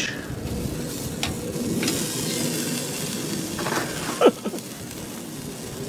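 Chicken sizzling on a hot barbecue grill, a steady hiss that swells a couple of seconds in, with a few light clicks and a short falling squeak about four seconds in.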